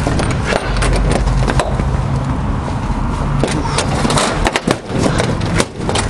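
Halligan bar clanking and scraping against a padlocked slide-bolt hasp as it is worked and set for the next strike, a run of short metal clicks and knocks over a steady low engine hum.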